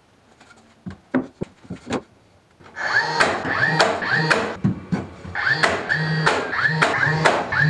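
A few light clicks, then from about three seconds in a DeWalt cordless nailer firing in quick succession, about two to three shots a second. Each shot is a sharp snap with a brief falling whine from the tool's motor.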